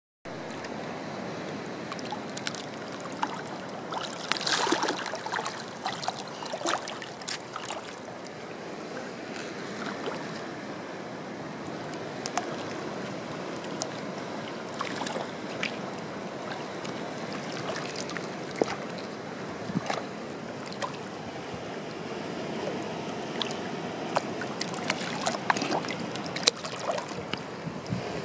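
Water splashing and sloshing as a crowd of sea turtles jostle and feed at the surface, with short sharp splashes scattered throughout, busiest about four to five seconds in and again near the end.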